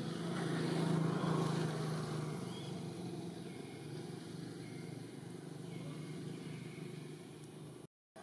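An engine running steadily in the background, swelling about a second in and then easing off, with a few faint short high chirps above it. The sound cuts off abruptly near the end.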